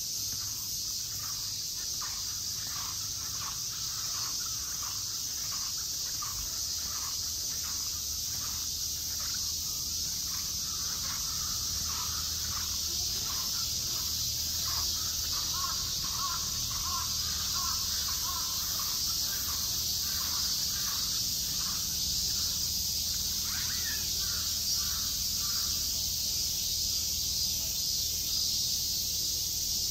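Crows cawing again and again over a steady high-pitched drone of insects. The cawing thins out near the end while the insect drone carries on.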